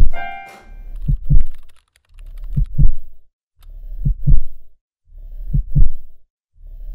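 Slow heartbeat sound effect: pairs of deep thumps (lub-dub), one pair about every second and a half, swelling and fading with each beat.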